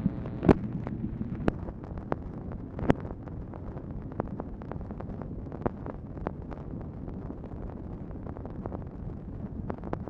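Surface noise of an old Dictabelt telephone recording: a steady hiss and hum with scattered clicks and pops, two of them louder, about half a second and three seconds in.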